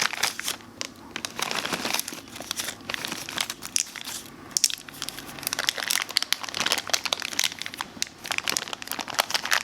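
Crinkling and rustling of a plastic chocolate chip bag as chocolate chips are shaken out of it onto the batter, an irregular run of crackles.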